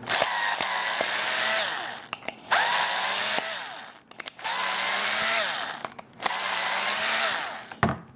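Bosch cordless screwdriver backing screws out of a 3D-printed plastic rotor in four short runs. Each run's whine rises in pitch as the motor spins up and drops as it stops, with small clicks between runs.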